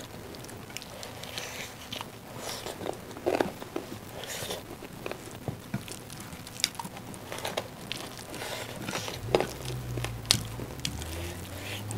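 Close-up eating sounds: fingers squishing and mixing rice with curry on plates, and chewing, heard as scattered soft clicks and smacks.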